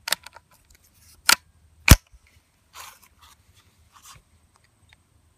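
A single shot from a Ruger 10/22 firing a standard lead round nose .22 LR cartridge about two seconds in, preceded by light clicks and a loud clack about a second in. A few faint clicks follow the shot.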